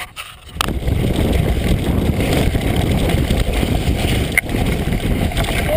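Mountain bike rolling fast down a dirt trail, heard through a camera mounted low on the bike: a steady, heavy rumble of tyre and wind noise, with a sharp knock about four seconds in.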